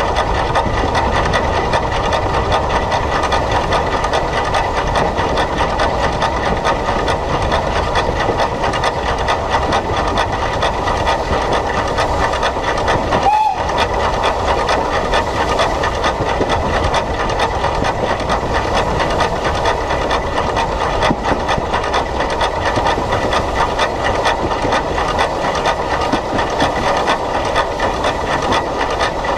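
Steady hiss and rumble of the SECR H class 0-4-4 tank steam locomotive No. 263, heard from a camera fixed to the engine, with a short high note about halfway through.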